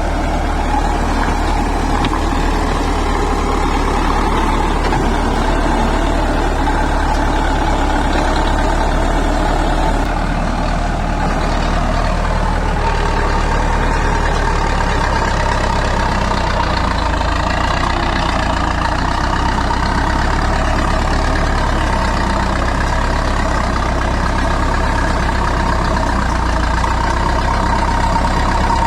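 Bulldozer's heavy diesel engine running steadily, with a steady high whine over the low engine sound.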